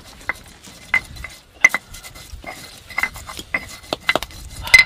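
Pestle knocking and grinding chillies in a cobek mortar while making sambal: about a dozen irregular, sharp clinks and knocks with a short ring, the loudest near the end.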